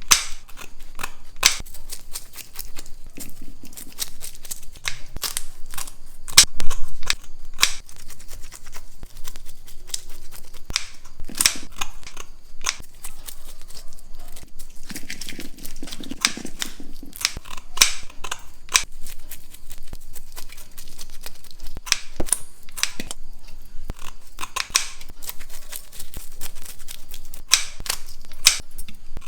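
Small pallathi (orange chromide) fish being cleaned and cut with a blade: a run of sharp cutting clicks and snips at irregular intervals.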